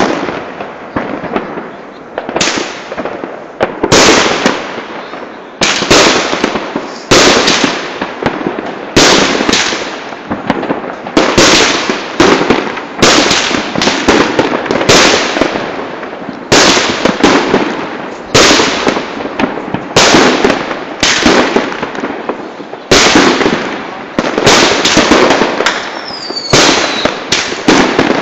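Fireworks bursting in quick succession, about one loud bang a second, each bang trailing off in a long echo. Near the end there is a short falling whistle.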